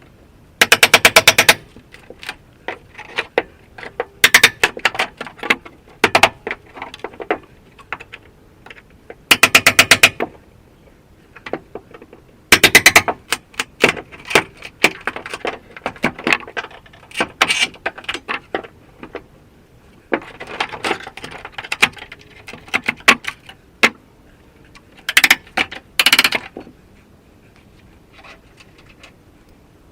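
Hand tool work with a rapid mechanical rattle: several short bursts of evenly spaced clicks, each about a second long, with single knocks and clatter between them.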